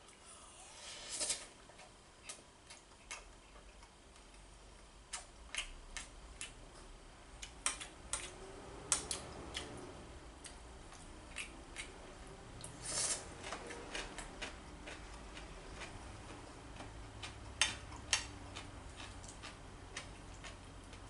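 Metal spoon clinking against a ceramic plate while eating, with irregularly spaced clicks and a couple of longer scrapes, about a second in and near the middle.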